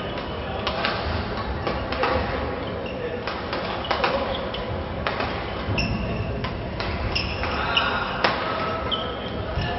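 Badminton hall sounds: scattered sharp racket hits on shuttlecocks and, in the second half, short high squeaks of court shoes on the wooden floor, over a steady hum of distant voices in the large, echoing hall.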